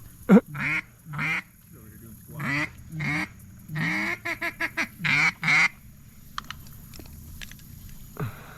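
Duck call blown in a series of loud quacks, about a dozen, with a quick chatter of five short quacks around four seconds in, stopping after about six seconds. It is calling to teal circling overhead.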